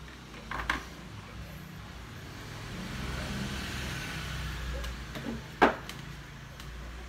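A few light clicks and knocks from test leads and objects handled on a desk, the sharpest about two thirds of the way through, over a low steady rumble that swells in the middle.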